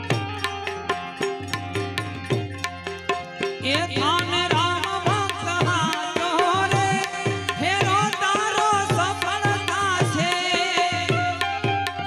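Instrumental break in a Gujarati bhajan. The tabla plays a steady rhythm, its bass drum strokes sliding down in pitch, over a held harmonium drone. About four seconds in, a melody instrument with sliding notes joins over the rhythm.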